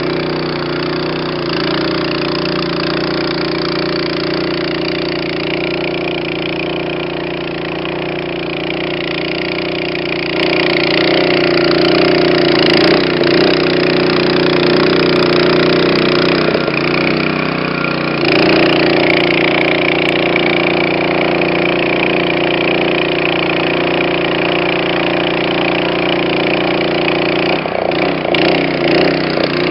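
Honda GX160 single-cylinder gas engine on a Niftylift TM34G boom lift running steadily while the hydraulic controls raise the boom. The engine grows louder about ten seconds in and again after a short dip a little past halfway.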